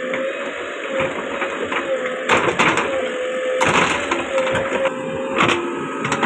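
JCB backhoe loader running under load with a steady, slightly wavering whine. Several sharp cracks and crunches come in the middle and near the end as the bucket tears at the palm tree's roots.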